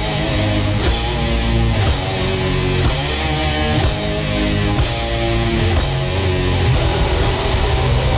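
A guitar, bass and drums band playing heavy, distorted rock in a mono mix. The chords change about once a second over a strong bass and constant cymbals.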